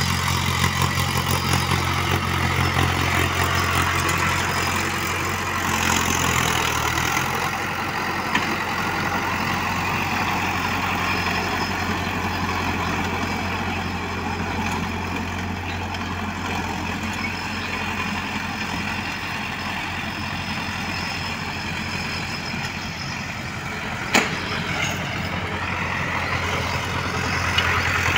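Mahindra Arjun Ultra 555 DI tractor's diesel engine running steadily under load while it pulls a rotavator through dry soil. Its low engine note drops away about seven seconds in, and there is a single sharp click near the end.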